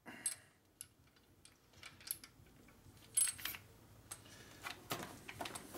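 Scattered light metallic clicks and clinks as a drill-driven cylinder hone is handled and drawn out of the bore of a Ford four-cylinder flathead block, with the drill stopped. A louder ringing clink comes about three seconds in.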